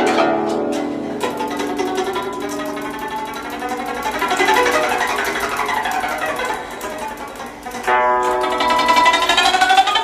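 Guzheng (Chinese plucked zither) played solo: fast plucked runs with sweeping glissandi up and down the strings. The music softens briefly, then comes back loudly about eight seconds in with rapid rising sweeps.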